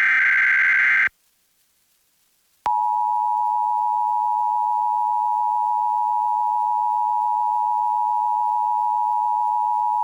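A burst of Emergency Alert System SAME digital header data, a harsh warbling screech, ends about a second in. After a short pause the EAS attention signal starts: the steady two-tone alert tone of 853 Hz and 960 Hz sounding together.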